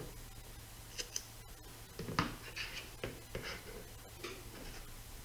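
Quiet, scattered crinkles and scrapes of packaging tape being handled and pressed onto a Lexan RC car body shell.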